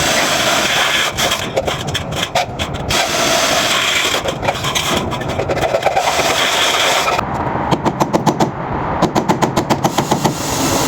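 Steady loud mechanical noise with scattered knocks. About seven seconds in it gives way to a fast rattle of short pulses, roughly eight a second, with a brief break partway through.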